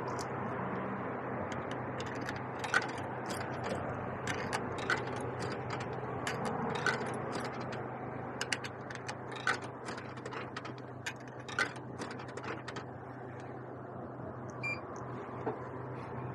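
Coins clinking one after another as they are fed into a retro vending machine's coin slot, over a steady electrical hum of the machines. A short electronic beep sounds near the end.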